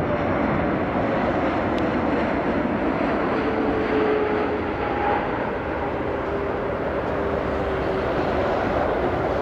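Jet engines of a Boeing 747-8F freighter (four GEnx-2B turbofans) on final approach, a steady roar with a faint whine that slowly falls in pitch as the aircraft passes.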